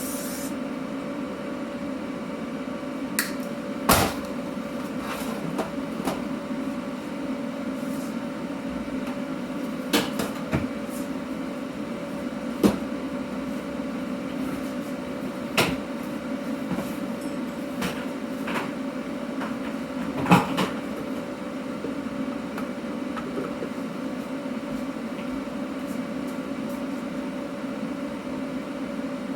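A steady machine hum runs underneath, with sharp metal clanks and knocks every few seconds: steel parts being handled and set down on a workbench.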